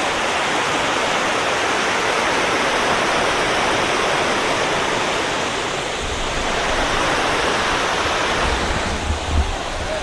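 Steady rush of a river pouring over rocks and a small weir at a waterfall. From about six seconds in, gusts of wind buffet the microphone with a low rumble.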